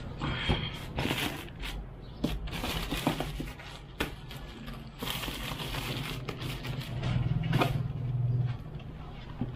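Plastic courier bag crinkling and rustling as it is pulled and torn off a cardboard box, with crackling tape and short knocks from handling the box. A low rumble swells for about a second and a half near the end.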